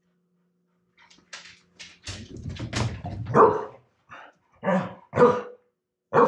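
Dog barking in a run of short, loud barks that starts about two seconds in, with single barks following near the end. The barking is excitement at a laser-pointer dot the dog is chasing.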